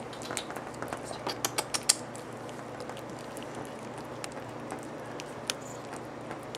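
Kitten eating wet canned food: irregular clicks and smacks of chewing and lapping, quick and many in the first two seconds, fewer after.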